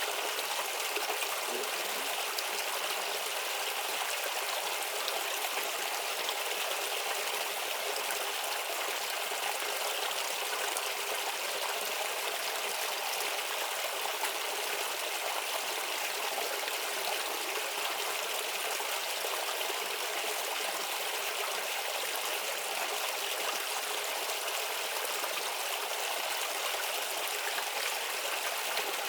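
Small stream babbling and trickling over stones, a steady even rush of water with no change.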